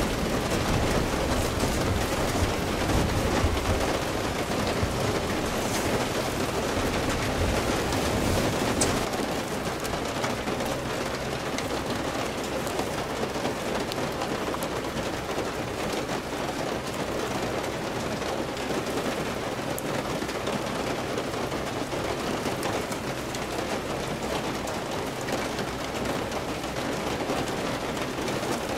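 Heavy rain falling steadily, a dense even patter with a low rumble under it for the first nine seconds or so.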